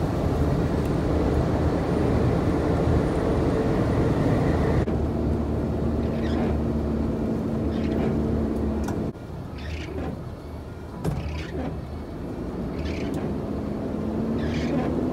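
Engine and road noise heard inside a truck cab at speed on a wet road, a steady low drone with a held hum. From about six seconds in, the windscreen wipers swish across the glass every second or two. The sound changes abruptly twice where separate clips are joined.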